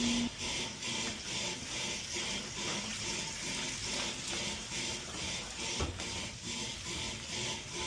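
Water draining out of a boiler and splashing, a steady rushing hiss that pulses about three times a second. A single low knock comes about six seconds in.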